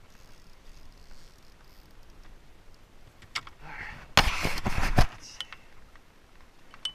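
Water lapping and splashing against a plastic fishing kayak, faint at first; about four seconds in, a loud rush of splashing with sharp knocks on the hull lasts under a second.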